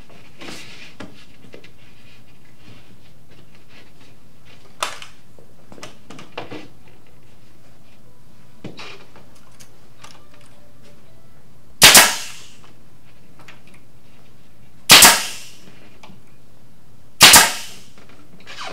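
Pneumatic staple gun firing three times, a few seconds apart, each shot a sharp bang with a short hiss trailing it, driving staples to fasten the cabinet panels together. A few light knocks from the panels being positioned come first.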